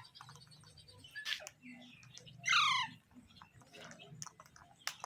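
A pet ringneck parrot gives one short squawk about two and a half seconds in, falling in pitch, with a few faint clicks before and after it.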